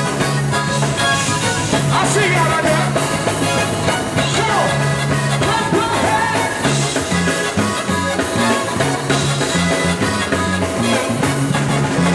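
Live zydeco band playing upbeat dance music, with a steady repeating bass line.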